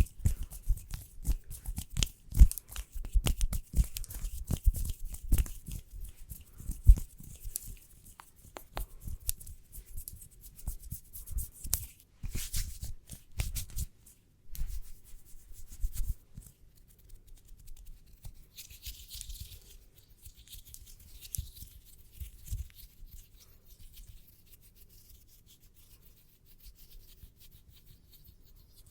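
ASMR fingernail tapping and hand rubbing. Dense, quick taps fill the first half, then give way to quieter, sparser rubbing.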